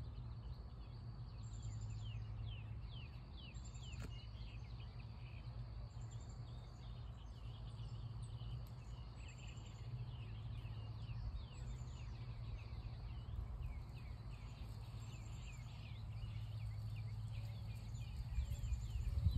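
Outdoor ambience of small birds chirping in quick short falling notes, with a thin high call repeated about every two seconds, over a low steady rumble. A brief louder low bump comes near the end.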